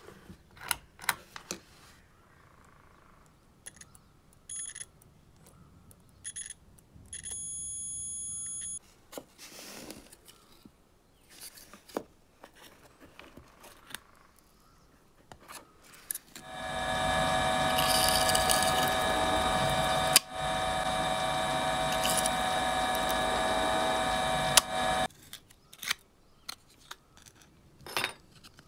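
Clicks of a push-button switch and short beeps from a multimeter's continuity buzzer as the switch is tested, one beep held about a second and a half. Past the middle a small power tool runs steadily for about eight seconds, the loudest sound, then light clicks of small parts being handled.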